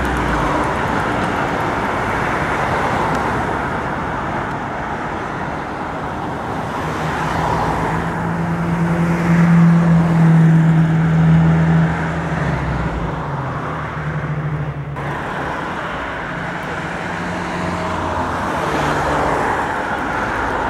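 City street traffic, with the low steady hum of a passing vehicle swelling about eight seconds in, loudest around ten seconds, and fading by fifteen seconds, where the sound breaks off abruptly for an instant.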